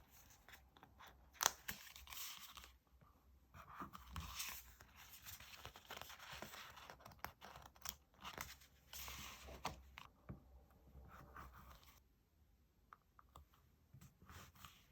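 Stickers and paper being handled for diary decorating: soft irregular peeling, crinkling and rustling with small taps and clicks, thinning to a few light clicks about twelve seconds in.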